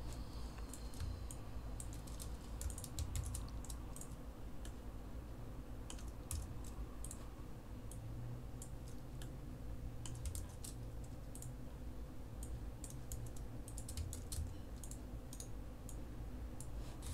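Faint, scattered clicking of computer keyboard keys and mouse buttons, irregular and coming in small clusters, over a steady low hum.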